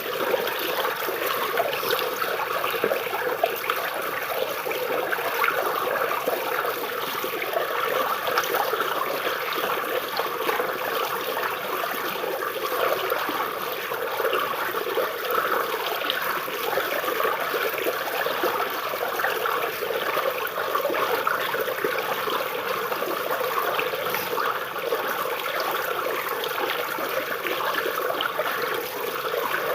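Water of a small stream flowing and babbling over tree roots, a steady trickling and splashing.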